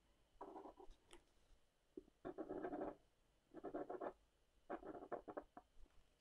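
Tip of a Sakura Pigma Graphic 1 pen scratching across watercolor paper in several short, quick strokes, drawing Totoro's whiskers.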